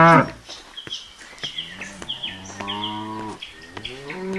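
Cows mooing: one moo fades out just after the start, a long, steady moo follows from about a second and a half in, and another begins near the end.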